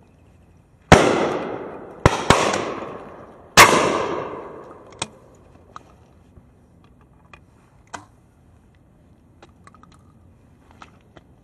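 Four gunshots from a long gun within about three seconds, the second and third close together. Each rings out in a long echo that fades over a second or more. A few faint clicks and knocks follow.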